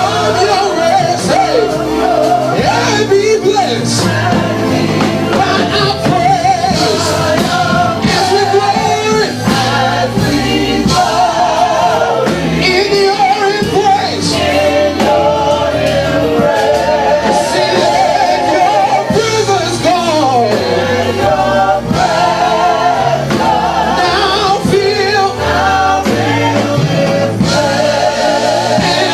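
Live gospel worship music: sung notes that waver with a strong vibrato, some held long, over steady instrumental accompaniment with a beat.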